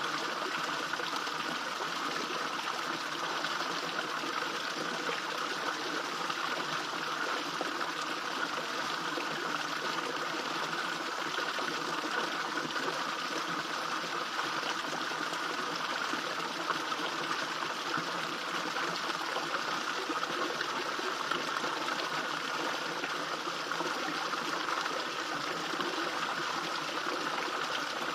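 Small garden fish-pond waterfall: water splashing and trickling steadily into the pond.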